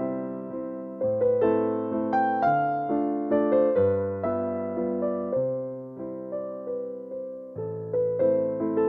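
Background piano music: a slow melody over chords and bass notes, each note struck and fading.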